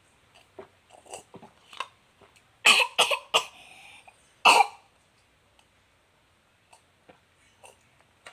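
A person coughing during a mukbang meal, a cough brought on by eating: a quick run of three loud coughs, then one more a second later. A few faint clicks come before the coughs.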